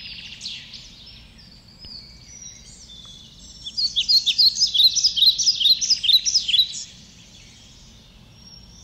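Small birds chirping in quick, high, gliding notes. The chirps are sparse at first, then come as a dense, louder run in the middle before thinning out near the end, over a faint low steady hum.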